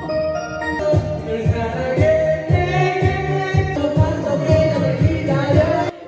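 Pop song playing with a singing voice over a steady beat.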